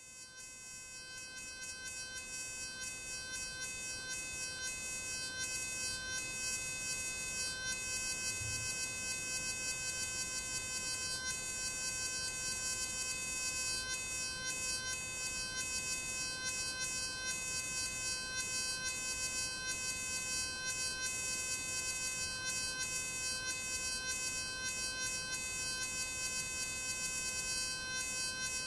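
Jacob's ladder spark arc fed by a 12-volt car ignition coil, giving a steady high-pitched buzz that fades up over the first few seconds and flutters slightly. According to the uploader, the coil's output is too weak for the arc to climb the ladder reliably.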